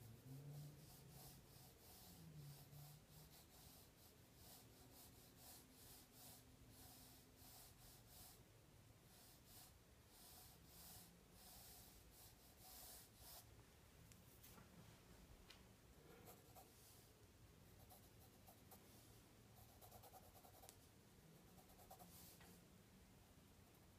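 Faint scratching of a graphite pencil on paper: short, irregular strokes in runs, with a brief lull about two-thirds of the way through.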